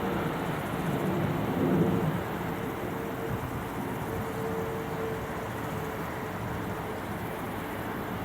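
Boeing 747-200 jet noise during landing: a steady rumble with a faint steady tone running through it.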